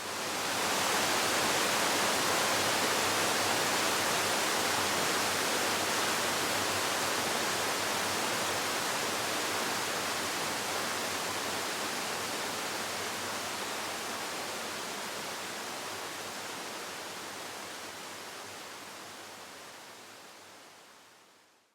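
Waterfall rushing, an even hiss-like roar of falling water. It fades in at the start, grows slowly quieter, and fades out near the end.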